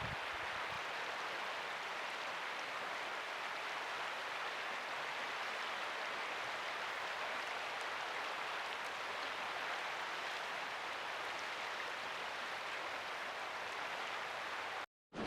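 Steady rushing of a mountain river's current, an even hiss of flowing water that cuts off abruptly near the end.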